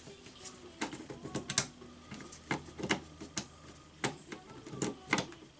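Irregular sharp clicks and light knocks of hand tool handling on a cordless drill held in a vise, about nine in all at uneven intervals.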